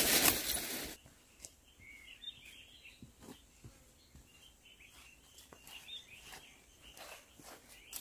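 Leafy greens piled in a woven basket rustling loudly as they brush close past for about the first second. After that, birds chirp faintly in the quiet, with a few soft footsteps.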